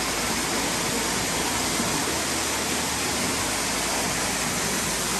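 Waterfall running: a steady rush of falling water that holds even throughout, with no distinct knocks or footsteps standing out.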